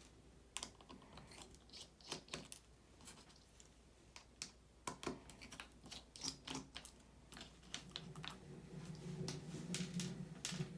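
Irregular small clicks and taps of a screwdriver and tiny screws against the MacBook's metal case as the trackpad screws are taken out. Background music fades back in near the end.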